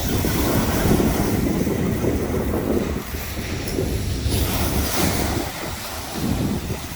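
Wind buffeting the microphone over a rush of waves, a rough noise that swells and eases.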